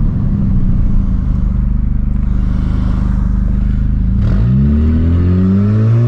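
Honda Civic 2.0 four-cylinder engine with an open exhaust diffuser droning steadily at low revs. About four seconds in, the revs begin climbing quickly as the car accelerates hard, and the exhaust note rises in pitch.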